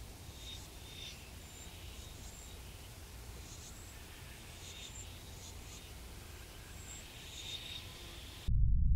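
Quiet outdoor ambience with scattered short, high chirps from small animals. Near the end a loud low rumble cuts in abruptly.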